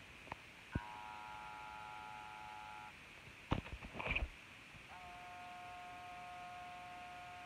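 Two long, steady electronic tones, each a chord of several pitches held for about two seconds: one starts with a click just under a second in, the other starts about five seconds in. Between them come a few clicks and knocks of handling.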